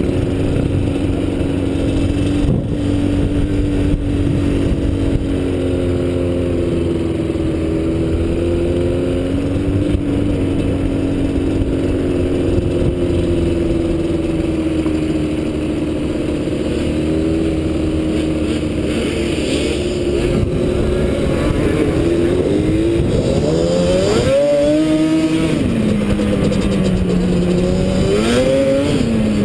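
Yamaha sport quad ATV engine running under throttle, heard close up from on the machine. The revs hold fairly even at first, then climb and drop repeatedly in the last several seconds.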